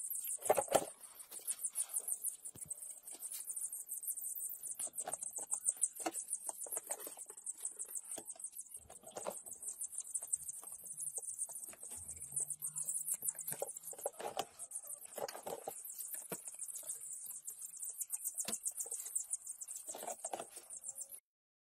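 A brood of newly hatched chicks peeping without pause in a high, rapid chorus, with a few dull knocks from the plastic brooder box being handled.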